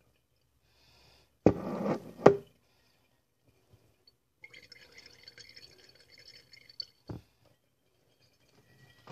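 Fire cider poured into a strainer over a glass jar: a short loud splash and pour about a second and a half in, ending in a sharp knock. Then a fainter trickle and drip of liquid running through the strainer into the jar, with a ringing glassy tone, and a single knock near the end.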